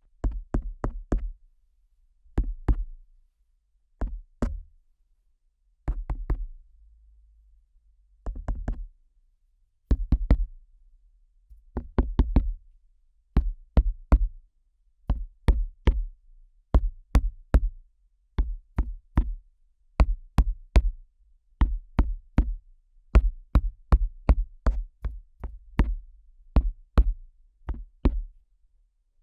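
Fingers tapping and flicking directly on the ear of a KU100 dummy head microphone, giving sharp clicks, each with a deep thud, in quick clusters of a few strokes. The clusters are spaced out at first, then come steadily about once a second from roughly halfway through.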